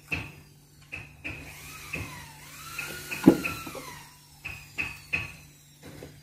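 Scattered sharp clicks and knocks, with one louder thump about three seconds in, over a steady low hum. A faint tone rises and falls in the middle.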